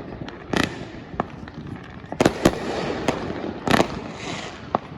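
Aerial fireworks bursting: about six sharp bangs at uneven intervals, several close together in the middle, with a brief crackling hiss after the loudest one.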